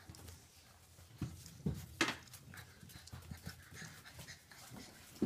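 Bullmastiff puppies panting and snuffling, with scattered soft knocks and a sharp click about two seconds in.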